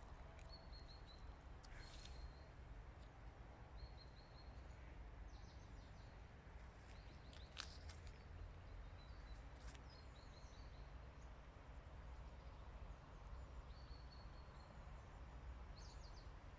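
Faint outdoor ambience: small birds giving short high chirps every few seconds over a low steady rumble, with a few sharp ticks.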